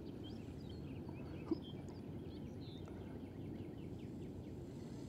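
Birds chirping, many short high calls with a quick run of notes in the middle, over a steady low rushing noise. A single sharp click about one and a half seconds in.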